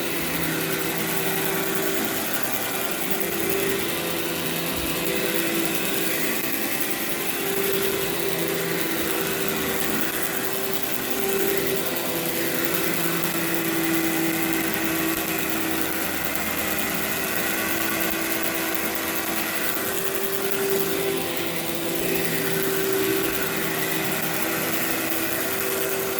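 Workhorse vacuum cleaner running steadily as it is pushed over carpet, its motor whine dipping and rising slightly in pitch as the load changes, while it sucks carpet freshener powder out of the fibers.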